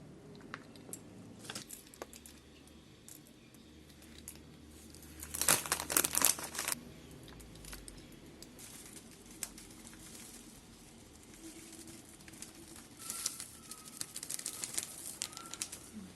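Bhimseni camphor being crushed and broken into pieces by hand: scattered sharp clicks, with a loud flurry about five and a half seconds in and another near the end.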